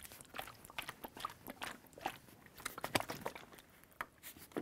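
Plastic gallon jug of water being shaken by hand to mix in pH Up. The thin plastic crackles and knocks irregularly as the water sloshes in the jug's small air space.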